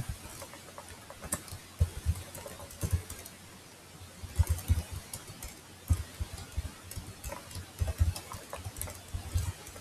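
Typing on a computer keyboard: irregular key clicks and soft thumps, with a brief lull about three seconds in.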